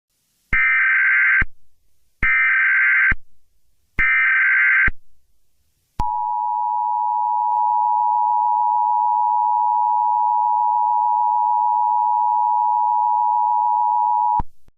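Emergency Alert System header: three short buzzy bursts of SAME digital data code, each about a second long, then the EAS two-tone attention signal held steady for about eight seconds before it cuts off sharply. It is the tone sequence that marks the start of an emergency alert broadcast.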